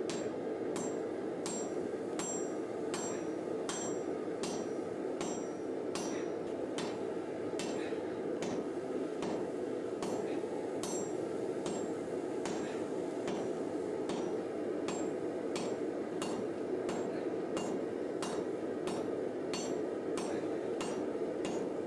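Sledgehammer blows on a hot steel bar on an anvil, drawing out the bar in the rough-shaping stage of forging a katana. The blows fall in a steady rhythm of about three every two seconds, each with a short high ring, over a steady rushing noise.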